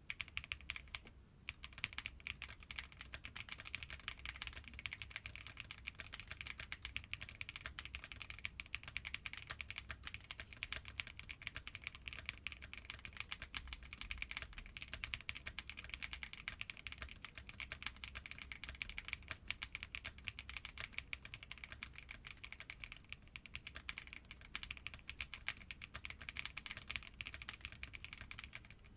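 Stock CIDOO V65 65% mechanical keyboard (gasket mount, polycarbonate plate, foam-dampened) typed on quickly and continuously for a sound test: a dense stream of key clacks, several keystrokes a second.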